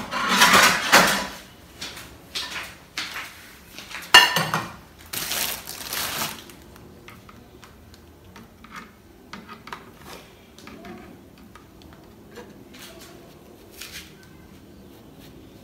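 Loud crinkling rustles of a plastic bread bag in the first six seconds as a slice is taken out, then faint scrapes and light clicks of a table knife spreading margarine across the slice of bread.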